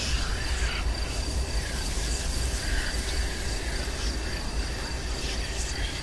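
Haunted-house horror ambience sound effect: a constant high insect-like trill like crickets over a steady low rumble, with faint wavering whistles drifting in and out.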